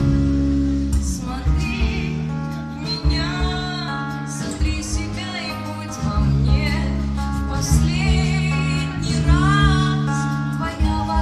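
Live rock band: a woman singing over electric and acoustic guitars with a steady beat.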